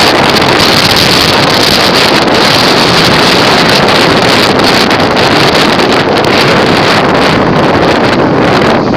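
Loud, steady rush of wind buffeting the microphone on a moving motorcycle.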